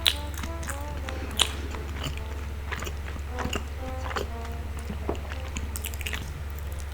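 Light background music playing a bouncy melody of short notes, over scattered sharp clicks and taps and a steady low hum.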